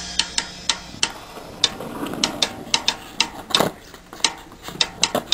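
A quick, irregular series of sharp clicks and clacks, roughly three or four a second, with slightly louder ones scattered through.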